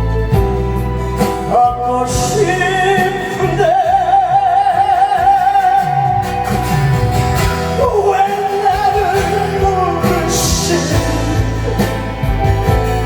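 A live song with a singer holding long notes with vibrato over a full accompaniment with a steady beat.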